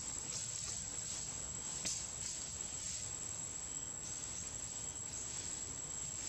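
Insects shrilling in one steady high-pitched drone over a low outdoor rumble, with a single sharp click about two seconds in.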